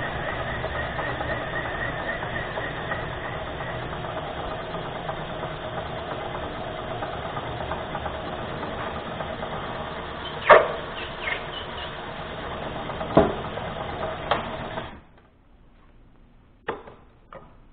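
Vertical milling machine running with a 1-inch end mill plunging counterbores into a white plastic plate, a steady machine hum with a few sharp knocks about ten to fourteen seconds in. The machine shuts off suddenly about fifteen seconds in, followed by a couple of light clicks.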